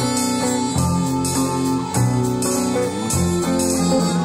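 Live instrumental ensemble music: sustained pitched chords over low notes, changing about once a second.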